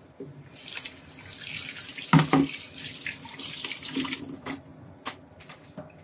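Kitchen tap running water into a bowl of peeled shrimp in the sink as they are rinsed. It starts about half a second in and stops around four seconds. A loud knock comes midway, and a few light clicks follow once the water is off.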